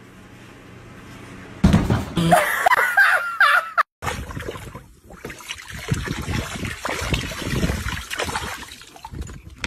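Water splashing and spraying as a dog bites and snaps at the jet from a garden hose in a paddling pool, starting about four seconds in. Before that comes a brief loud wavering call with a curving pitch.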